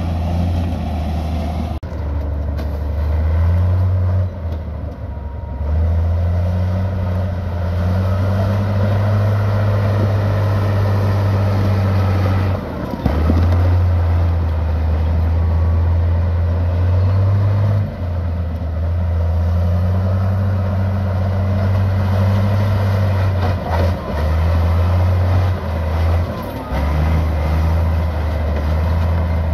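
Heavy diesel engines of earthmoving machinery running under load: a deep, steady drone that dips briefly several times.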